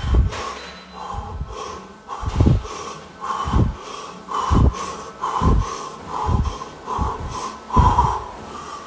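A man breathing hard through a set of push-ups: a forceful breath with each rep, close to the microphone, about one a second and quickening toward the end.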